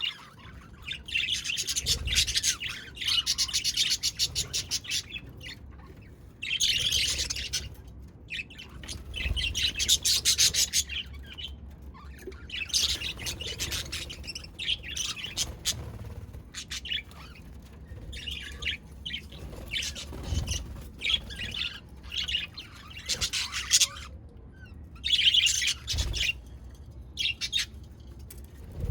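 Budgerigars chirping and chattering in quick bouts of a second or two with short pauses between them.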